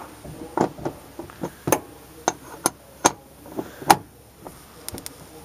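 Steel flare nut wrench working the brass cap nut on a Goodman air handler's line-set connection loose, to let the nitrogen holding charge bleed out. It makes a string of about ten sharp, irregular metal clicks and knocks.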